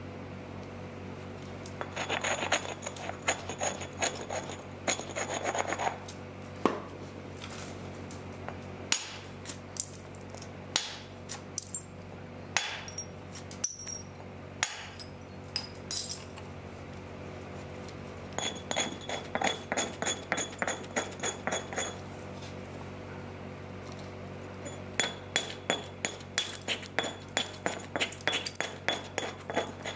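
Helgoland flint being knapped: runs of quick, light, glassy taps on the stone, several a second, with single sharp clicks in between.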